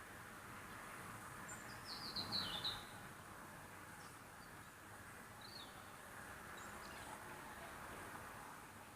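A small bird chirping: a quick run of high, falling chirps about two seconds in and a shorter one about five and a half seconds in, over a faint steady hiss of outdoor ambience.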